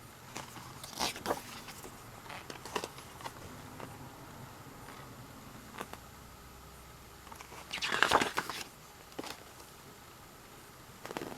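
CD album packaging and its paper contents being handled: scattered small clicks and rustles, with a louder rustle lasting about a second, roughly eight seconds in.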